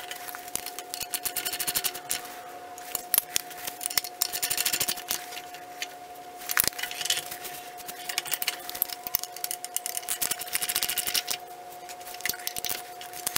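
Socket ratchet wrench clicking in several quick runs while tightening the nuts on a new rear sprocket's hub.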